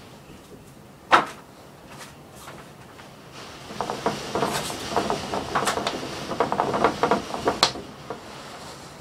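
Sliding storm shutters (amado) being worked along their track. A single sharp knock about a second in, then a run of rattling clatter from about halfway, ending in a sharp knock near the end.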